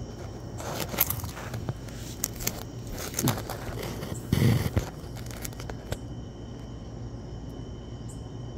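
Handling noise as a phone camera is moved: scrapes and knocks over the first five seconds, the loudest about four and a half seconds in, over a steady low hum.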